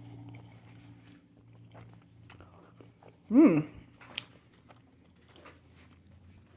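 Close-up chewing of chow mein noodles, with soft wet mouth clicks, broken by a short hummed 'mm' about three and a half seconds in.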